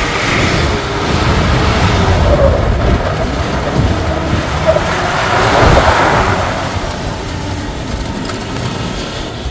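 A 4x4 pickup truck driving past on a dirt course: engine rumble and tyre noise on the loose ground, swelling twice and loudest about six seconds in.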